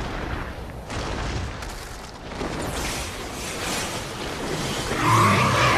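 Animated-film sound effects: a continuous rushing rumble that swells in waves, growing louder about five seconds in, where sustained steady tones join it.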